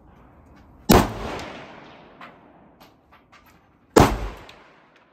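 Kalashnikov rifle fired twice in single aimed shots about three seconds apart, each sharp crack trailing off over about a second.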